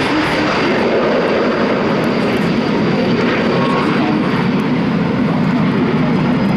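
A formation of CASA C-101 Aviojet jet trainers, each powered by a single Garrett TFE731 turbofan, climbing out just after takeoff. Their engines give a loud, steady jet rumble with a thin high whine above it.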